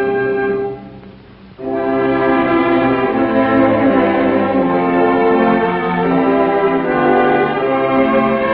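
Orchestral title music led by brass. A held chord fades out about a second in, and after a short break the brass comes in with a new, louder phrase.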